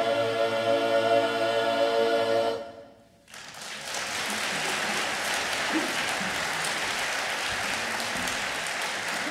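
Men's a cappella chorus holding a final chord that cuts off about two and a half seconds in. After a brief hush, the audience applauds steadily.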